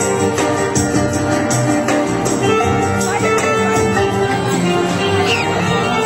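Dance music with a steady beat.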